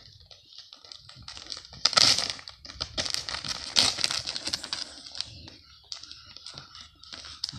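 Roe deer bucks sparring, their antlers clicking and clacking together in quick irregular runs, loudest from about two to four seconds in.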